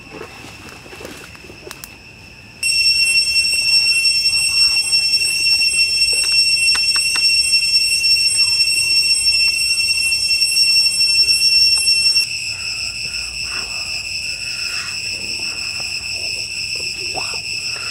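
Steady high-pitched insect drone. It comes in abruptly and loud about two and a half seconds in and drops a little in level near twelve seconds, with a few faint clicks over it.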